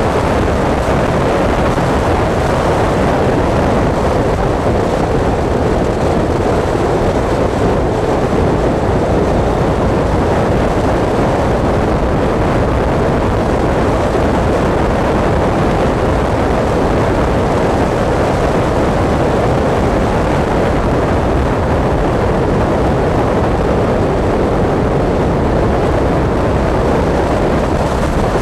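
Motorcycle riding at a steady speed up a climbing road: engine running under load with wind rushing over the onboard microphone, a loud, even noise with no gear changes or breaks.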